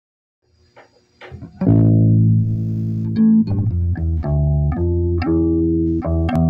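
Guitar playing: a few faint scratches, then a low chord rings out about a second and a half in, followed by single notes plucked at a steady pace, about two a second.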